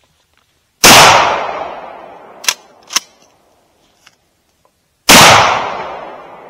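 Two blasts from a pump-action 12-gauge shotgun, about four seconds apart, each ringing out for over a second. Between them, two sharp clicks half a second apart as the pump is racked back and forward to chamber the next shell.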